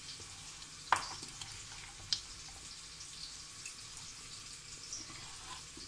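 A spoon mixing potato and boondi chaat in a bowl, with two soft clicks of the spoon against the bowl about one and two seconds in, over a faint steady hiss.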